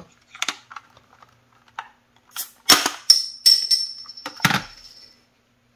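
Metal crown cap being pried off a glass bottle with the edge of a model Cybertruck. A few light clicks, then a run of sharp clinks about three seconds in as the cap comes off, with a ringing that fades, and one more knock a second later.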